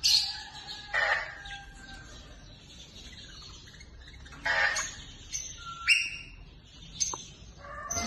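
Caged birds calling: about half a dozen short, sharp calls spread a second or so apart, one followed by a briefly held whistling note and one rising in pitch.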